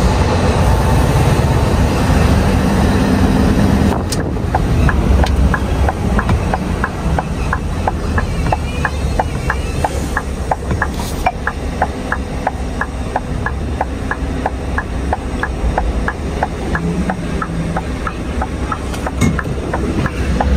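Scania V8 lorry engine running at low speed. About four seconds in the engine note drops a little, and a steady ticking starts, about three ticks a second.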